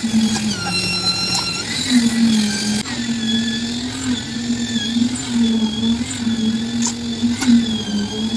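Concrete mixer machine running: a steady engine hum whose pitch wavers slightly, with high squealing tones and a few sharp clicks over it.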